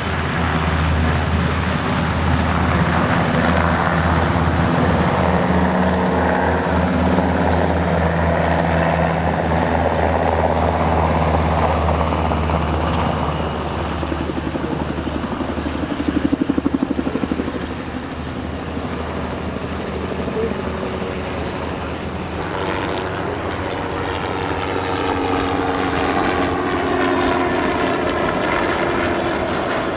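Twin-turbine NH90 military helicopter running loud: a fast, steady rotor beat under a thin high turbine whine as it lifts off and flies, the whine fading out about halfway. Near the end the sound takes on a sweeping, phasing tone as the helicopter passes.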